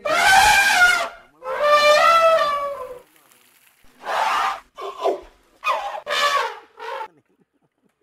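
Elephant trumpeting: two long, brassy calls in the first three seconds, then several shorter, broken calls after a brief pause.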